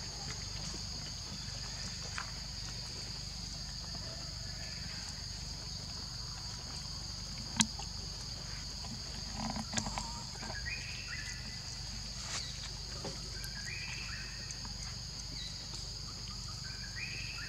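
Steady high-pitched insect drone, with a few short rising chirps scattered through and one sharp click about seven and a half seconds in.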